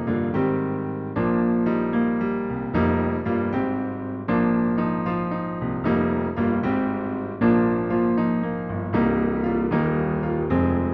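Casio Privia PX-S7000 digital piano playing one of its factory keyboard sounds: chords struck in a steady rhythm, each sustaining and fading before the next.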